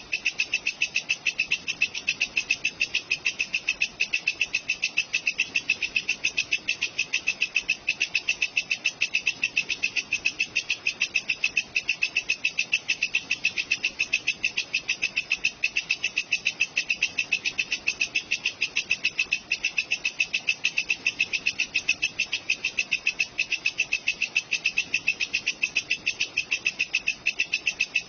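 A walang kecek insect chirping in a steady train of rapid, evenly spaced, high, scratchy pulses that keeps the same pace and pitch throughout.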